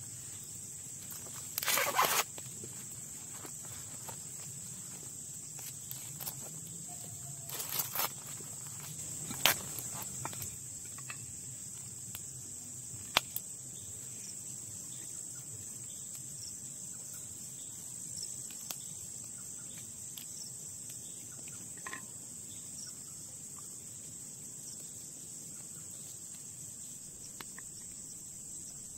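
Steady high-pitched chorus of insects, with a couple of short rustling, tearing bursts of corn husk being pulled back near the start and a few sharp clicks.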